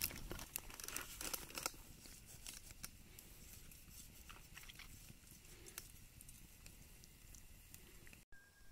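A plastic zip-top bag crinkles for the first second or two as dry herbs and spices are shaken out of it onto a seared roast. Then come faint, scattered light ticks and rubbing as fingers press the seasoning into the meat.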